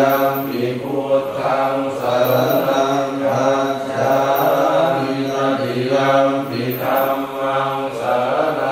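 Thai Buddhist prayer chanting (suat mon): low voices intoning on a near-level pitch in short, evenly paced phrases.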